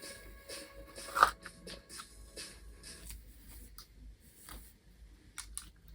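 Light handling clicks and rustles over faint background music, which fades out about three seconds in. One brief sharp sound about a second in is the loudest thing.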